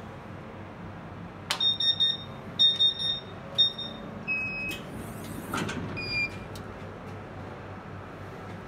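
Kamach CO2 laser cutter running a cutting job: a steady hum of the machine and its air supply, a click, then a series of short high-pitched whines, three of one pitch about a second apart and then a few at other pitches, as the laser fires in short bursts.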